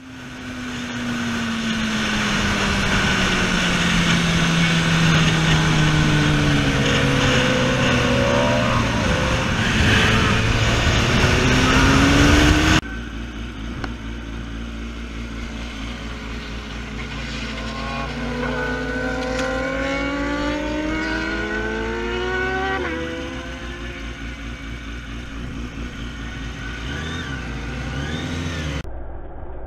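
Sport motorcycle on a race track, heard onboard with wind noise: the engine note sinks slowly as the bike slows, then rises again as it accelerates. After a sudden cut, sport bikes are heard from trackside, engines climbing in pitch as they ride past, one dropping sharply a little past the middle.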